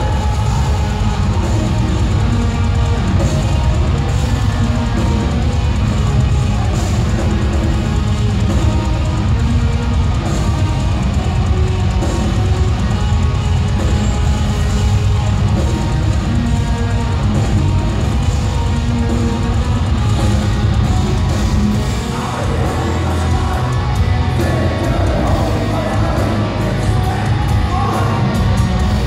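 Live post-black metal band playing loud, dense distorted guitars over drums. About two-thirds of the way through, the low drums and bass drop away for several seconds, leaving the guitars, then come back in near the end.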